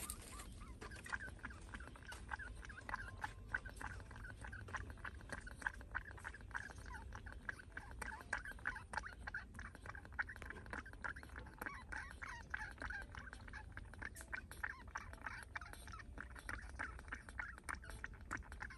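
Baby monkey suckling milk from a plastic feeding bottle: a fast, irregular run of small sucking clicks, faint and continuous.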